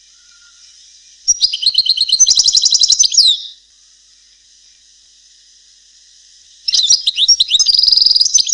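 European goldfinch singing: two phrases of rapid twittering and trilled high notes, about two seconds each, one starting a second in and the other near the end, over a steady high hiss. It is a Palestinian-style goldfinch song of the kind played to young birds so they learn it.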